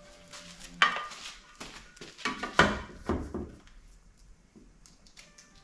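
Light metallic clinks and knocks from screws and the sheet-metal Mylar dispenser being handled and fitted: several sharp clinks, most of them in the first half.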